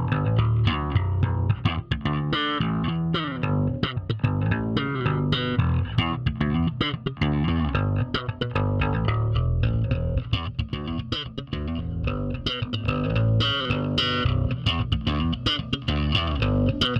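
Electric bass guitar playing a busy line of quick plucked notes, its tone shaped by the Bassment bass-processing plugin.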